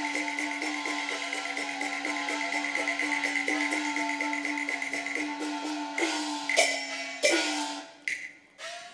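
Cantonese opera percussion and instrumental accompaniment for a dance passage: a fast, even beat of wood-block clicks over a steady held tone, broken about six seconds in by a few loud ringing percussion strikes, the last one dying away near the end.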